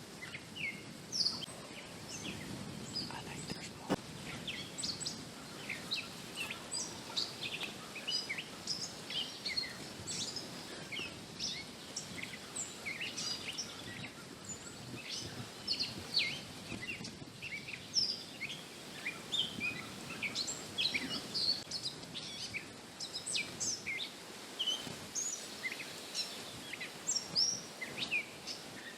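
Songbirds chirping and singing, many short high calls overlapping throughout.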